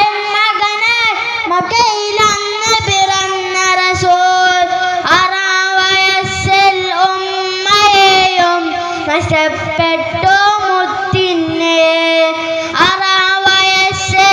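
A boy singing an Arabic devotional song in praise of the Prophet solo into a microphone, with long held notes bent and ornamented in melismatic runs.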